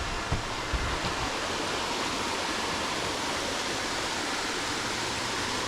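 Steady rush of a waterfall's falling water, with a few low thumps in the first second or so.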